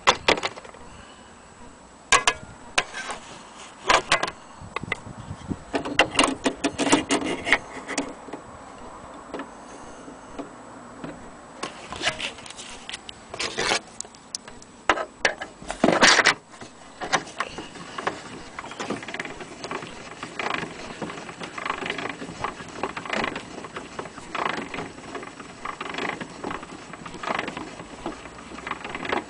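Handling noise from a wooden wind-up gramophone case: irregular knocks, clicks and rubbing, with the loudest knock about halfway through.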